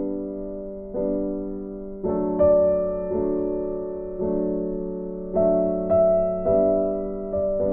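Background piano music: slow notes and chords, each struck and fading before the next.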